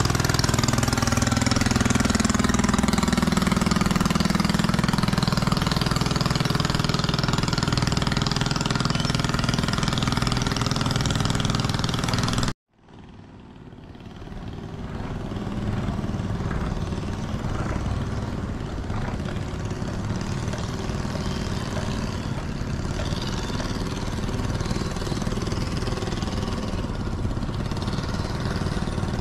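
Small boat engine running, its note falling over the first few seconds. The sound cuts off abruptly about twelve seconds in, then a quieter engine fades up and runs steadily.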